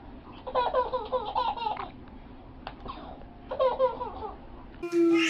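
Baby laughing in two bouts of rapid, pulsing giggles, about half a second in and again near four seconds. Near the end the sound changes abruptly to a louder held tone.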